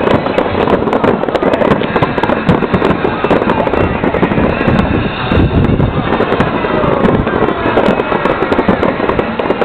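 Aerial fireworks shells bursting in a rapid, unbroken run of bangs and crackles.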